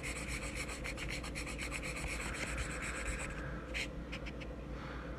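A rubber eraser rubbing quickly back and forth on paper, erasing the pencil guidelines from under an inked drawing. The strokes are rapid and continuous at first, then thin out to a few lighter strokes after about three seconds.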